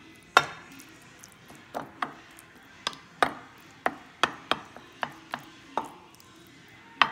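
A utensil knocking and tapping against a glass baking dish about a dozen times at uneven intervals as meat sauce is spread over its bottom; the first knock, about half a second in, is the loudest.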